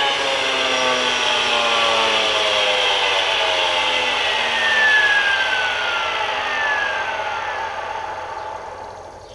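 DeWalt 18V XR cordless 16-gauge angled finish nailer's motor and flywheel whirring, then winding down in a slowly falling whine with a wheezy hiss that fades out near the end. It is very noisy, like a person with severe asthma trying to breathe.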